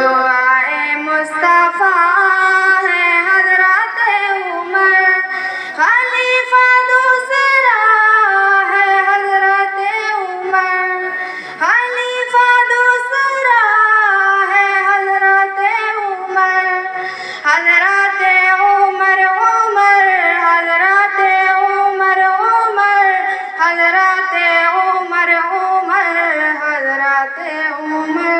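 A tarana sung in a high voice as one melodic line, with long held notes and sliding pitch changes, and no drumbeat.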